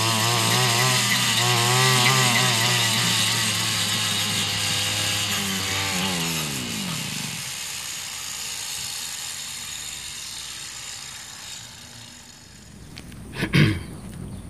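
Brush cutter engine running with its speed surging up and down, then slowing and dying away about seven seconds in, followed by one sharp knock near the end. The engine keeps dying, which the owner suspects may come from a blockage in the fuel line to the carburettor.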